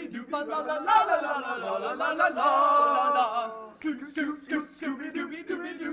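A group of men singing a cappella together, several voices holding notes in harmony, breaking into shorter, choppy vocal sounds in the last two seconds.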